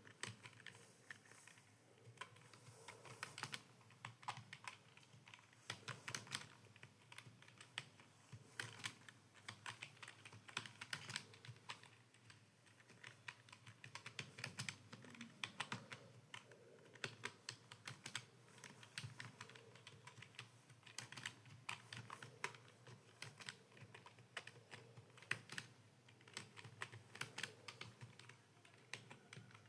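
Computer keyboard typing: a faint, continuous run of quick keystrokes with brief pauses.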